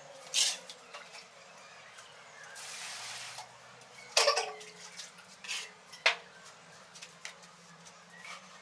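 Ceramic tiles and hand tools clinking and knocking during tiling work: several sharp knocks, the loudest a little past the middle, with a short hiss or scrape just before it.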